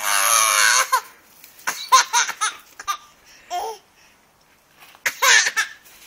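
Baby laughing in high squeals: a long squeal at the start, a run of short laughs about two seconds in, and another burst near the end.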